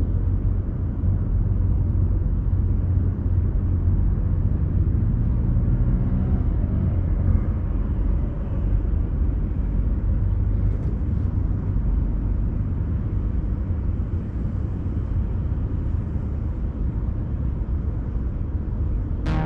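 Steady, loud, low outdoor rumble with no distinct events.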